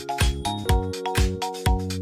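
Background music with a steady beat of about two beats a second, held low notes and short high notes.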